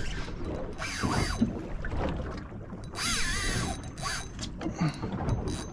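Spinning reel's drag buzzing as a hooked fish pulls line off against it on light 15-pound gear. It comes in strongly about three seconds in and lasts about two seconds, its pitch wavering as the run speeds and slows.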